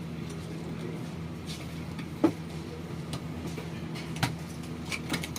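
A steady low hum with a few sharp clicks and taps over it, the loudest about two seconds in.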